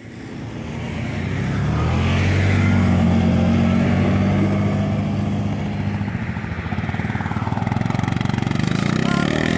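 Quad bike and side-by-side UTV engines running as they drive past on a road. The engine sound fades in at the start and its pitch rises near the end as one accelerates.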